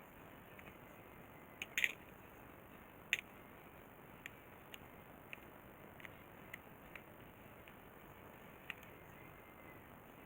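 Scattered small clicks and taps of hand tools and small parts being handled: a few louder clicks about two and three seconds in, then lighter ticks every half second or so, and one more near the end.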